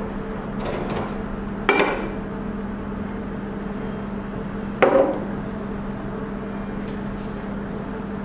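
Metal tools and cable lugs clinking against a screw terminal block as supply leads are fastened with a screwdriver: two sharp clinks about two and five seconds in, with a fainter tap before them, over a steady low hum.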